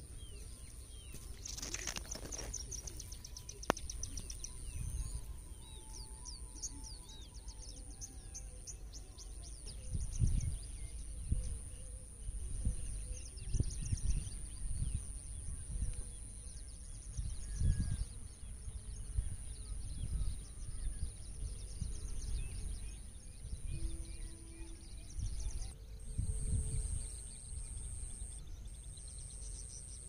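Outdoor natural ambience: a steady high-pitched drone throughout, birds chirping rapidly for the first ten seconds or so, and low gusts of wind buffeting the microphone.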